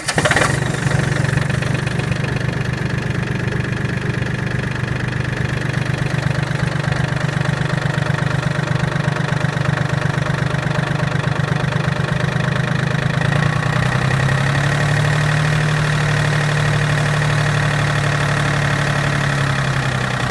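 John Deere 770's three-cylinder 1.4-litre Yanmar diesel starts instantly and settles into a steady idle. The engine speed picks up a little after about 13 seconds.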